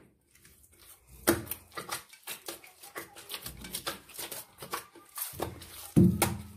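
Hands kneading a soft dough in a glazed earthenware dish: irregular slaps, squishes and presses, with a louder thump about a second in and another near the end.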